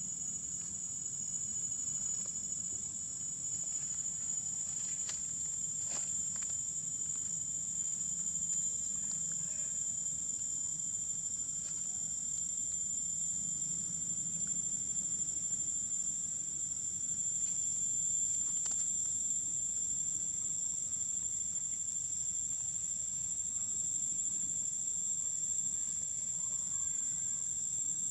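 A steady, high-pitched chorus of insects trilling without a break, with a few sharp clicks about five, six and nineteen seconds in.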